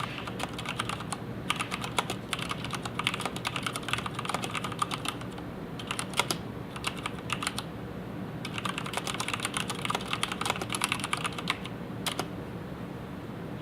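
Typing on an mStone Groove87-FR4 mechanical keyboard with red linear switches: fast, irregular keystroke clacks in bursts, with a pause of about a second past the middle. The typing stops a little before the end.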